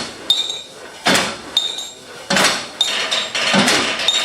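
Percussive strikes, hammer-like blows on metal, played as a rhythm by craftsmen, about two a second and uneven. Several strikes leave a short, high ring.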